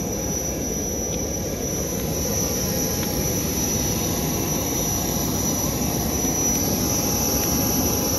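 Aircraft jet turbine running steadily: a constant high whine over a low rumble.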